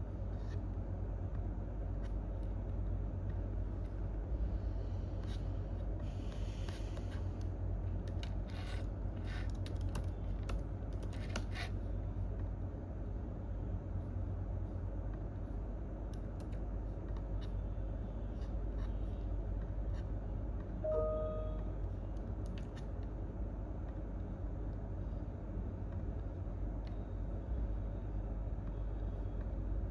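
Office room tone with a steady low hum, under scattered computer keyboard keystrokes and clicks that come thickest in a spell of typing from about four to twelve seconds in. A short pitched tone sounds once, about twenty-one seconds in.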